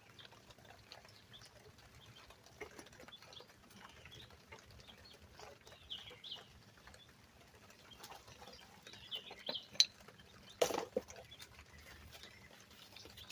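Faint clicks and light scraping of a rear brake pad being slid into the caliper bracket's track, with one louder sharp metal knock near the end. Chickens cluck faintly in the background.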